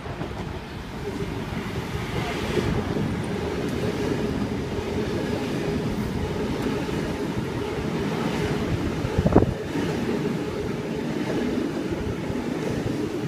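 A Sydney Trains H-set "Oscar" double-deck electric multiple unit running through the platform without stopping, a steady rumble of wheels on rail that builds about a second in. A single loud knock about nine seconds in.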